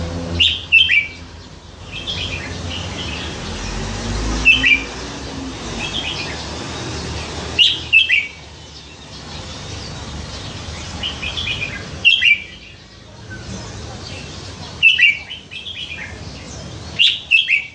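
Red-whiskered bulbul singing short, loud song phrases about every two to three seconds.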